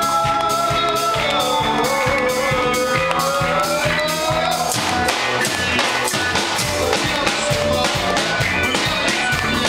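A live bhangra band playing, with dhol, drum kit and electric guitars keeping a steady beat. A long, wavering lead line runs over the first half and ends about halfway through.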